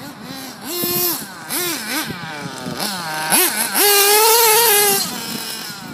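Nitro engine of a Losi 2.0 RC buggy revving up and down in quick surges as it is driven. About two-thirds of the way in it holds a high, steady whine for about a second, then backs off.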